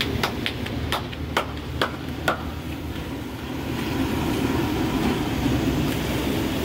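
A few sharp, irregular knocks in the first couple of seconds over a steady low burner rumble. Then puri dough deep-frying in a large karahi of hot oil takes over as a steady sizzle.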